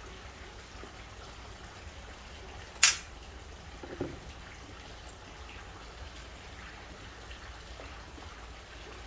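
A single sharp click about three seconds in, followed a second later by a softer, duller knock, over a low steady hum and faint rustling.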